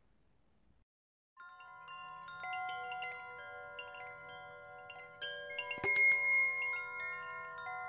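Wind chimes ringing in many overlapping tones at different pitches, starting after about a second and a half of silence, with one louder strike about six seconds in.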